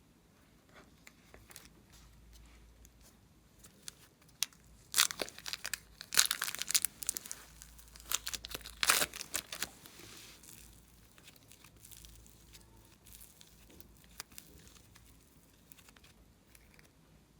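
Glossy slime being squished and stretched by hand, giving a dense run of sticky crackles and pops that starts a few seconds in and lasts about five seconds, then thins to a few faint clicks.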